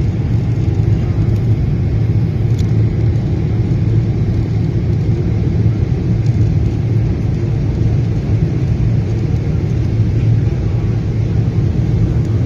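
Steady low roar of the airliner's turbofan engines and rushing air, heard inside the passenger cabin during the climb after takeoff.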